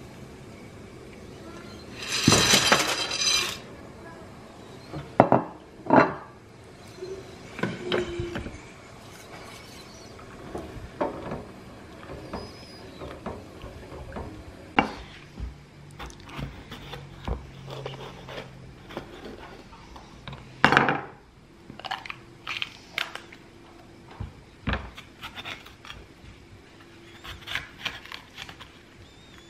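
Stainless steel pot and kitchen utensils clattering and knocking while pasta is cooked: a loud clatter lasting about a second, about two seconds in, as dry penne goes into the pot, then scattered knocks of a wooden spoon stirring in the pot. Near the end, a knife taps on a wooden chopping board while a red pepper is cut.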